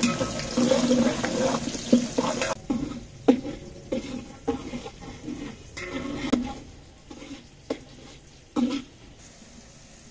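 Sliced onions sizzling in hot ghee in a large aluminium pot, being fried toward brown while a steel ladle stirs them. The sizzle is loud for the first two or three seconds, then drops away, leaving scattered knocks and scrapes of the ladle against the pot.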